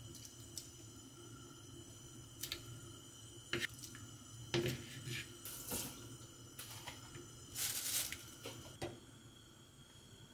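Chunks of raw beef for soup dropped one after another into a pot of cold water: several irregular plops and splashes, the loudest about halfway through and near the end, over a low steady hum.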